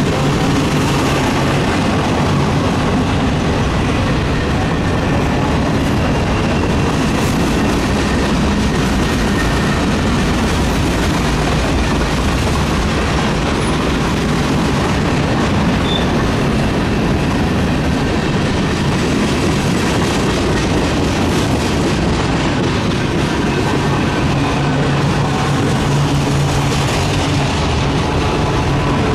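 A long freight train's cars rolling past at close range: a steady, loud rumble and clatter of steel wheels on rail, with faint high-pitched wheel squeal.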